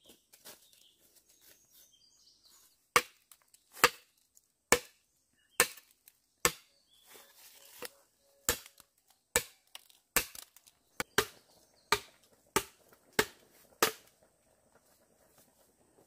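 A machete chopping into a wooden pole: about fifteen sharp, hard strikes, roughly one a second, starting a few seconds in and stopping near the end.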